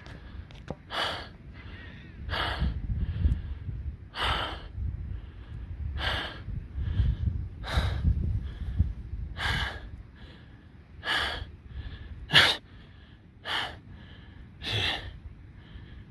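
A man breathing hard after running: heavy, gasping breaths about every one and a half seconds, over a low rumble.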